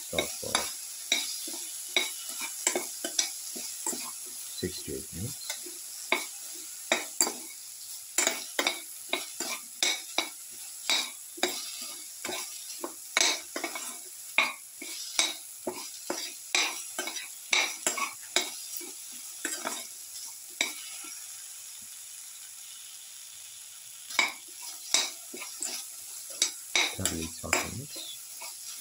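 Sliced okra with garlic frying in a metal pan, sizzling steadily, while a metal spatula stirs and scrapes against the pan in quick strokes about twice a second. The stirring stops for about three seconds late on, leaving just the sizzle, then starts again.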